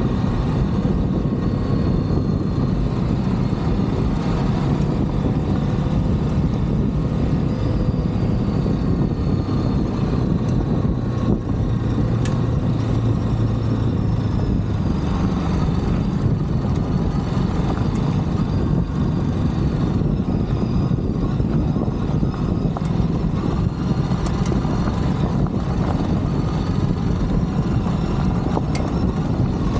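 Ducati DesertX's 937 cc L-twin engine running steadily at low revs on a gravel track, mixed with rumbling wind and tyre noise.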